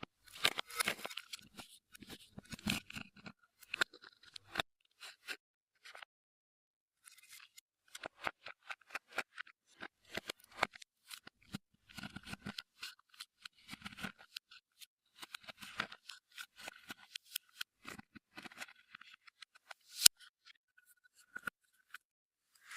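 Clear slime being worked by hand, giving irregular sticky crackles and small popping clicks. There is a pause of about two seconds early on, and one sharper click comes near the end.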